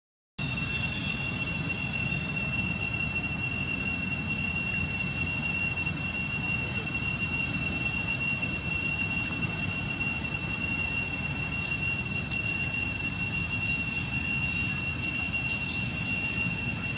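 Insects droning: a steady high-pitched whine with a second, higher tone above it and short rasping pulses flickering over the top, over a low outdoor rumble. It starts abruptly after a brief silence.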